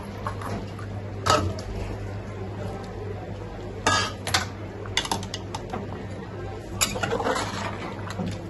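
Metal utensils clinking and knocking against a metal cooking pot, about half a dozen sharp clinks, as a bowl of bottle gourd pieces is emptied into a simmering curry and a steel spoon goes in to stir, over a steady low hum.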